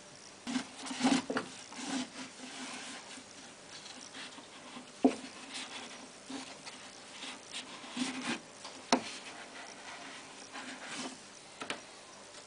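Irregular rubbing and scraping with a few sharp plastic clicks and knocks, the strongest about five seconds in and again near nine seconds, as the detergent drawer recess of a washing machine is cleaned by hand.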